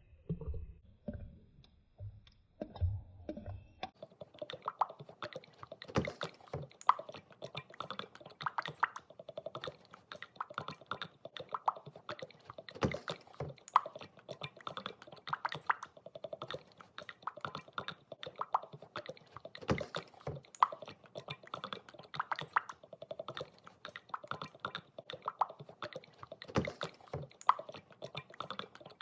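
Oil sloshing: a dense, irregular run of small wet clicks and gurgles, starting about four seconds in after a few fading low music notes.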